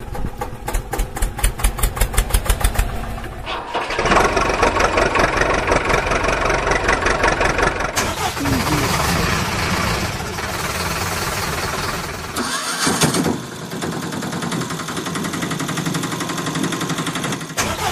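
A string of motor-vehicle engine sound effects that cut abruptly from one to the next every four seconds or so. It opens with an engine chugging at about five beats a second, then moves to engines starting and running.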